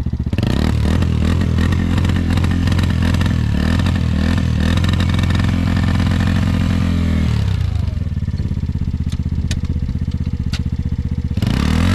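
Yamaha Raptor 90 quad's small four-stroke single-cylinder engine held at high revs under full throttle for several seconds, then falling back as the throttle is let off about seven seconds in. It runs low for a few seconds, then revs up again near the end.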